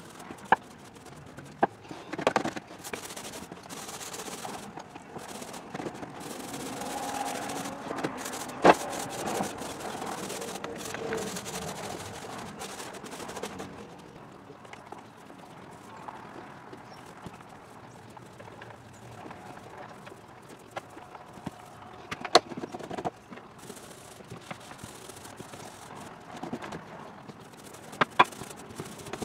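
Small foam paint roller rolling primer onto a boat's floor, a soft rasping swish, with several sharp clicks and knocks from the roller and its wire frame against the deck.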